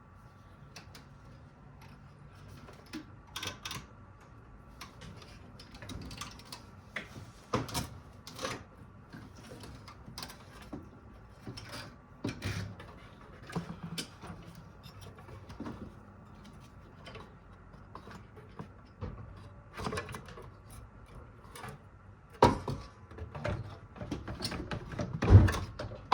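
Scattered knocks, clunks and rattles as the stock radiator is worked loose and lifted out of the 4Runner's engine bay. The knocks come irregularly, growing busier in the last few seconds, with the loudest thump about a second before the end.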